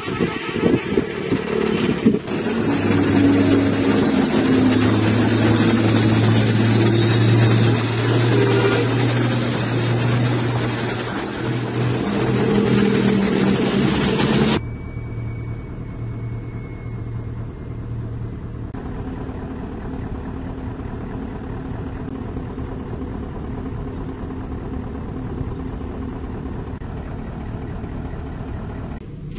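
Road traffic with a heavy truck's engine running as it passes, with a strong low engine hum; about halfway through it cuts off suddenly to a quieter, steady engine hum.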